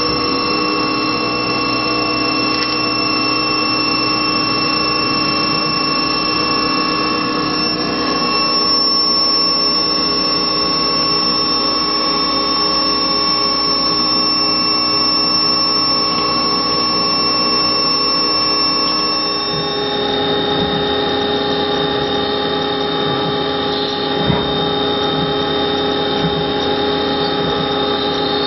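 CNC milling machine spindle running at a steady speed with a whine, cutting an aluminium salt-shaker body. About two-thirds of the way in, the sound changes to a different steady whine.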